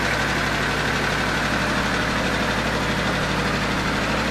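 International farm tractor's engine running steadily, with no change in speed.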